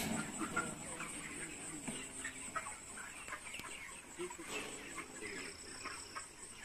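A shed full of broiler chickens clucking and chirping: many short, scattered calls from the flock.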